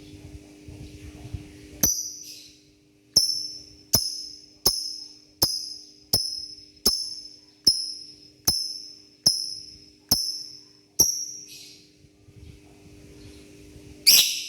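About a dozen sharp metallic jingling taps, evenly spaced a little under a second apart, each ringing briefly and dying away, then one louder jangle near the end, over a faint steady hum.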